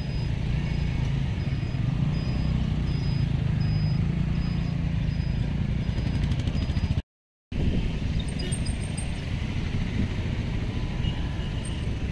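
Outdoor ambience of steady road-traffic rumble, with a faint high chirp repeating about twice a second through the first half and a few brief high bird-like calls later. The sound drops out for about half a second around seven seconds in.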